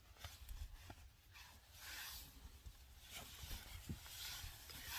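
Faint rustling of bedding and clothing as a person shifts and lies down, with a few small knocks and clicks from handling. The rustling swells about two seconds in and again toward the end.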